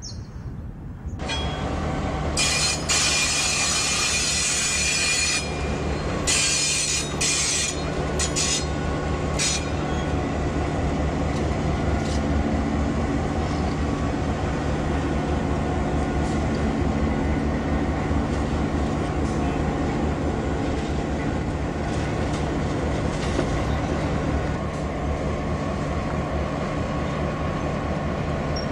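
Clyde EMD bulldog-nose diesel locomotive hauling carriages slowly, its engine a steady low drone. Loud high-pitched squealing comes in two stretches, about two seconds in and again about six seconds in.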